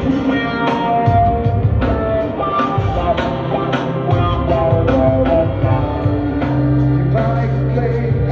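Live rock band jamming with electric instruments and drums: held bass and guitar notes over a steady beat of drum hits.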